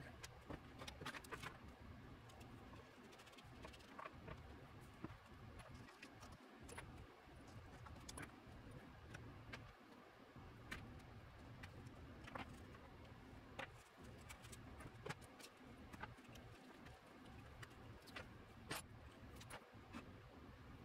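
Quiet, scattered small clicks and light metallic taps of a steel motorcycle fender and its wiring being handled on a wooden workbench, over a low steady hum.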